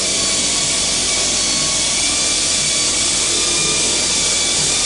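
A loud, steady hiss of rushing air, with a few faint steady tones running under it.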